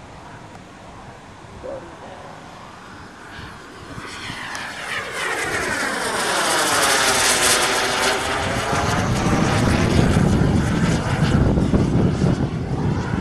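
Radio-controlled scale Jet Provost T5 model jet making a pass. Its jet rush is faint at first and swells from about four seconds in, with a sweep that falls and then rises in pitch as it goes overhead, and it stays loud near the end.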